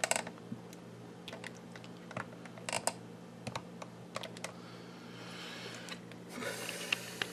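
Scattered light clicks and taps of a small flat-blade screwdriver turning plastic bulb sockets into the back of a Pontiac G6 climate control panel, with a short rustle near the end.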